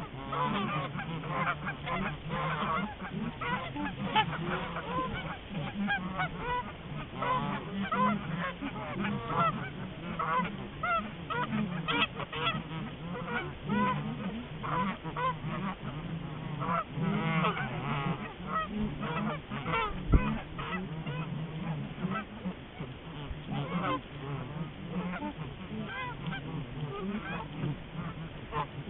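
A flock of geese honking, many calls overlapping continually. A single sharp knock sounds a little past halfway.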